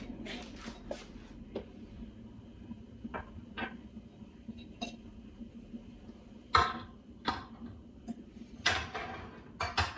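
Black stemmed wine glasses and a martini glass being set down and shifted on a tray on a granite countertop: a scatter of light knocks and clinks, the sharpest about six and a half seconds in.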